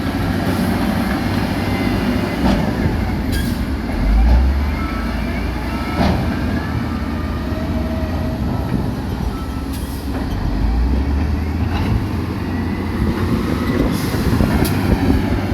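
Heavy diesel earthmoving machinery running steadily, with scattered metallic clanks and short squeals.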